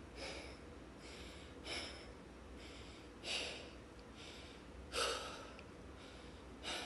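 A man breathing hard from strain, with five short, noisy breaths about a second and a half apart.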